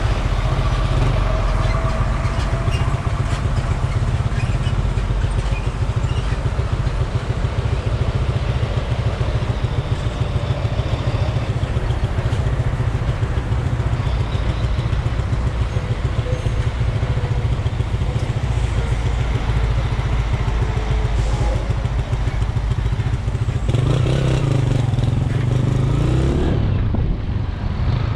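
Motorcycle riding slowly through traffic on a wet road: a steady engine note under heavy wind rumble on the camera microphone, with semi-trucks' diesel engines running alongside. About 24 seconds in, a louder low engine sound swells and slides in pitch, then fades.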